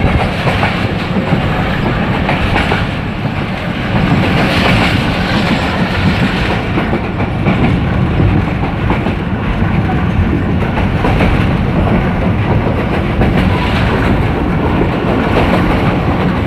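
A train running, heard from on board: a steady loud rumble with the clatter of wheels on the rails.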